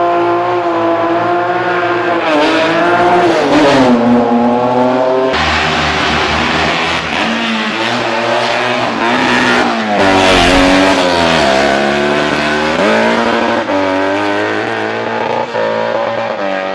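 Historic racing car engines revving hard, the pitch climbing and dropping again and again through gear changes, with an abrupt switch to a different engine sound about five seconds in.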